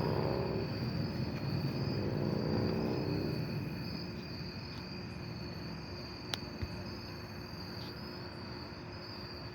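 Crickets chirping in a steady high trill, over the low rumble of a jet aircraft passing overhead that fades about three and a half seconds in. A single faint click comes about six seconds in.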